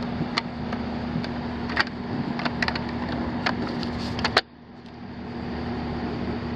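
HVAC condensing unit running with a steady hum and a constant low tone, with scattered sharp clicks of handling. A loud click comes a little past four seconds in, after which the background dips and slowly comes back up.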